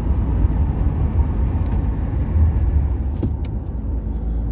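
Car interior noise while driving at a steady speed: a continuous low rumble of engine and tyres on the road, heard inside the cabin. A few light clicks come about three seconds in.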